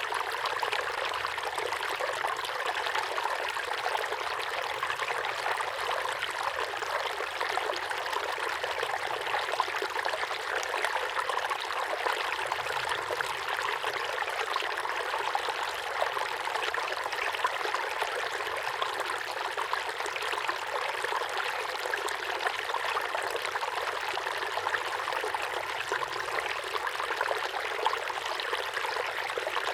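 Small waterfall pouring steadily into a pond, a continuous splashing and trickling of falling water.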